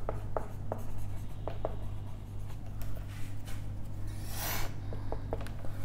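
Marker pen writing on a whiteboard: a quick series of short taps and squeaks as the strokes of a word go down, then a longer rustle about four seconds in, over a faint steady low hum.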